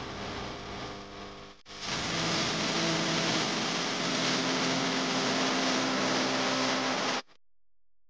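Small 12-volt DC motor spinning a fan in a plastic-bottle grain cleaner: a steady whir and rush of air with a faint hum. It breaks off briefly about a second and a half in, then cuts off abruptly about a second before the end.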